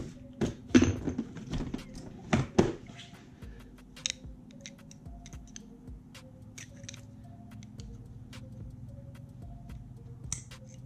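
Metal clicks and scrapes from a screwdriver working a wire wrist-pin retaining clip into its groove in a piston. Several sharper clicks come in the first three seconds, then lighter ticks. Faint background music runs underneath.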